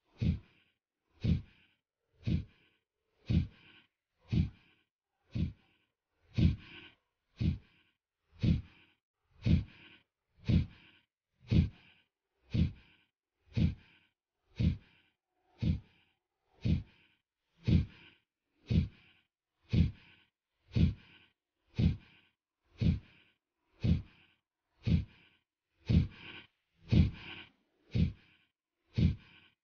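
Kapalbhati pranayama breathing: short, forceful exhalations through the nose, one stroke about every second in a steady rhythm.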